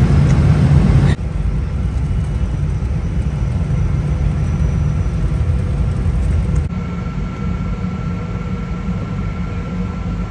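Steady low rumble of an airliner cabin in flight, the drone of the jet engines and airflow heard from a passenger seat. It drops a little in level abruptly about a second in and changes character again past the middle.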